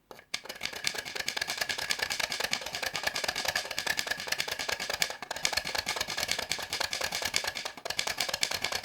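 A 3D printer running: rapid, dense mechanical clicking with a steady high tone. The sound starts and stops abruptly.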